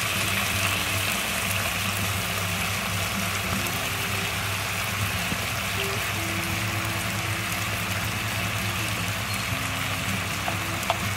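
Steady sizzle of fried pork trotters cooking in a pot on the stove as soy sauce is added, under soft background music with slow, held low notes.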